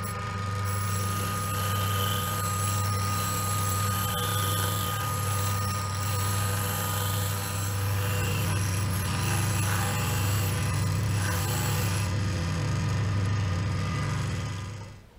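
Makita bench grinder running with a steady hum while a steel drill bit is ground on its white wheel, a grinding hiss from about a second in until about twelve seconds. The motor sound then falls away sharply just before the end.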